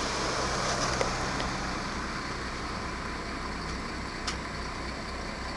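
A heavy truck's engine running steadily at a distance, over a faint hiss of road noise, with a couple of faint clicks about one and four seconds in.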